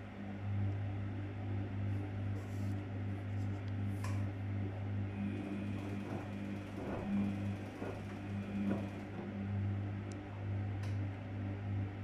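Daewoo DWD-FT1013 front-loading washing machine running with its drum turning wet, soapy laundry: a steady low motor hum that swells a little now and then, with faint water sloshing and a few small clicks.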